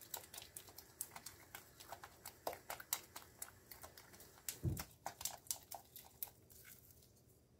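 Silicone spatula beating and scraping a thick flour-and-water sourdough starter in a bowl: a quick run of faint clicks and scrapes, several a second, with one dull thump about halfway through. The stirring stops shortly before the end.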